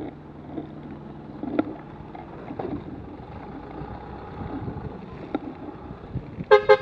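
Buggy Rollin wheel suit rolling slowly on a road: a steady low rolling noise with scattered clicks and knocks. Near the end, two short, loud horn toots.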